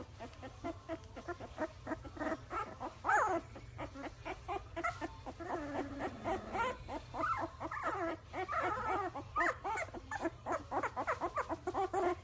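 Young Labrador retriever puppies whimpering: many short, high calls in quick succession, some sliding up and down in pitch.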